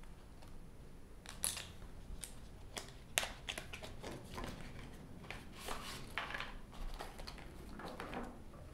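Packaging being handled and opened by hand: scattered small clicks and short rustling bursts.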